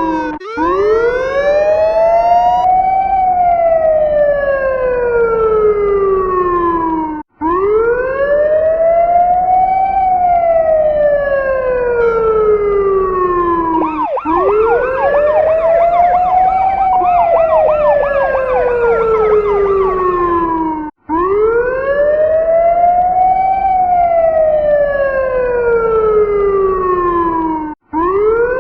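Emergency-vehicle siren on a slow wail: each cycle rises over about two seconds and falls over about four, repeating roughly every seven seconds with a brief cut between cycles. In the middle cycle, several more quickly sweeping siren tones are layered over the wail.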